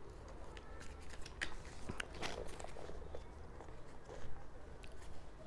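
Tarot deck being shuffled and handled by hand: quiet, irregular card clicks and taps.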